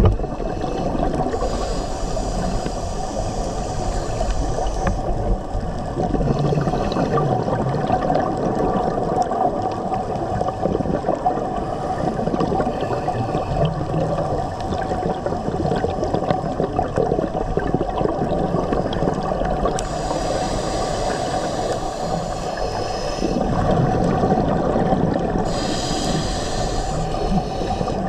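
Underwater sound picked up through a dive camera's housing: a steady low rush of water, broken by a few bouts of higher hissing and bubbling from a diver's scuba regulator.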